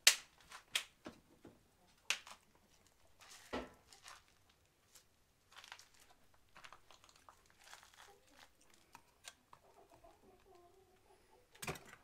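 Crinkling and rustling with scattered sharp clicks and knocks, the loudest right at the start and another near the end: food being handled and set out for an animal's dinner.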